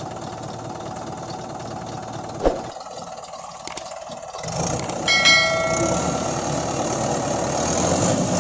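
Mahindra 585 DI Turbo tractor's diesel engine running steadily, with a single knock about two and a half seconds in. The engine grows louder from about halfway through. Over it, a mouse click and then a ringing bell sound effect from a subscribe animation, about four and five seconds in.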